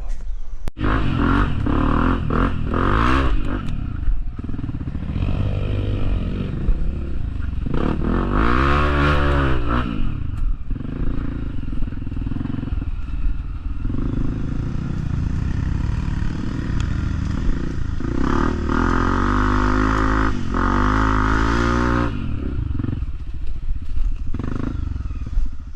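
Off-road motorcycle engine revving on a trail climb, its pitch rising and falling several times as the throttle is worked.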